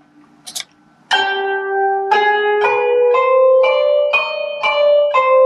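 Notation-software playback of a Hüzzam makam melody in a plucked-string sound. After a few faint clicks, a line of single notes starts about a second in, roughly two a second, each ringing and fading into the next.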